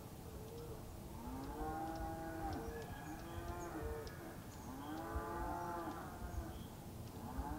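Long mooing calls from several animals, overlapping, each rising then falling in pitch, heard four times.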